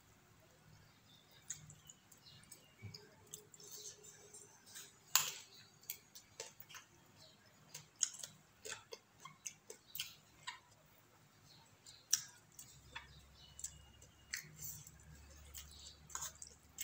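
Close-up eating sounds: chewing and wet mouth noises, with irregular sharp clicks and crunches scattered throughout.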